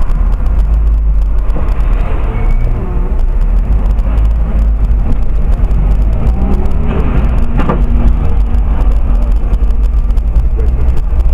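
Steady, loud low rumble of a car driving in city traffic, engine and road noise picked up by a dashcam microphone inside the cabin.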